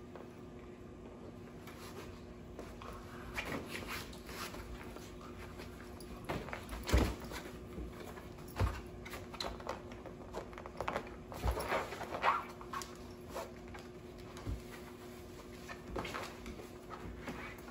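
A husky and a Sheprador puppy play-wrestling on tent fabric: irregular thumps, paw scuffles and fabric rustling, with the sharpest knocks about seven seconds in.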